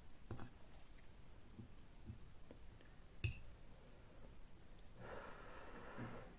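Faint mouth sounds of a person eating noodles close to the microphone: scattered soft clicks, one sharper click about three seconds in, and a soft breathy sound near the end.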